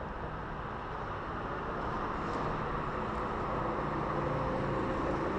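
Steady highway traffic noise from a bridge overhead, with faint drawn-out hums of passing vehicles in the second half.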